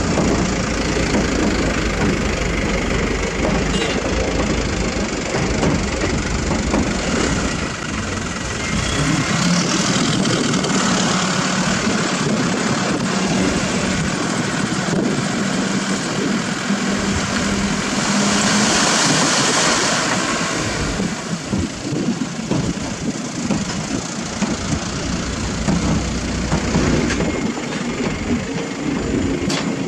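Diesel dump truck engines running steadily: a Mitsubishi Fuso Canter, and an Isuzu Elf with its bed raised to tip. A hiss swells and fades about two-thirds of the way through.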